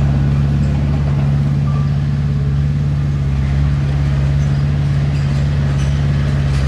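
Heavy diesel engine of earthmoving equipment running steadily, a low even drone with no change in pitch.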